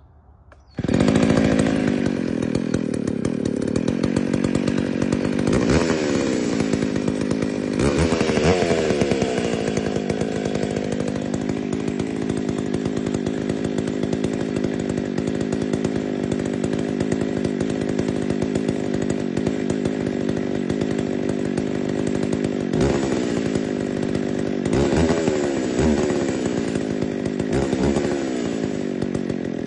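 McCulloch Pro Mac 605 two-stroke chainsaw engine starting about a second in and then running steadily, its idle stepping up slightly partway through, with several brief revs of the throttle while its carburettor is being tuned.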